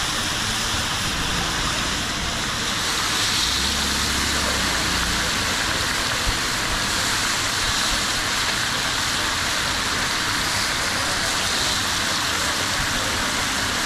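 Ghevar batter frying in a wide kadai of hot fat: a steady, loud sizzling hiss as thin streams of batter are poured into the rings.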